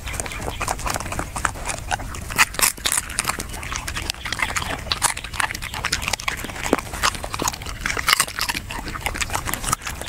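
A dog chewing and crunching a fish close to the microphone: rapid, irregular crunches and wet smacks that continue without a break, loudest between about two and three seconds in.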